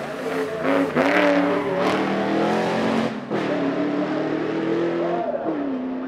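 Ford XY Falcon race car's engine accelerating hard under full throttle. Its pitch climbs, breaks sharply about three seconds in, climbs again, then drops to a lower, steady note near the end.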